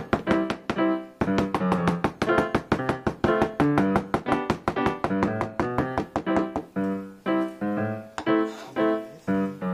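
Background piano music: a light tune of quick, evenly repeated notes.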